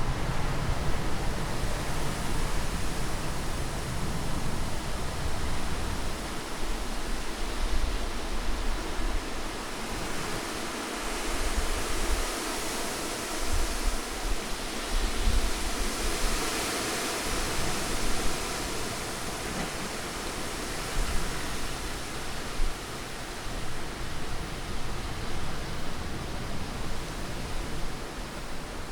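Steady rushing wind, swelling and easing slowly, with a low rumble that drops away for a stretch in the middle and comes back toward the end.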